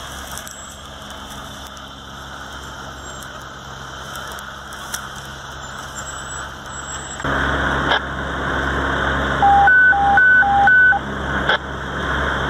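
Steady hum of an idling engine under a noisy hiss, getting louder about seven seconds in. Near the end a quick electronic beep alternates high and low three times.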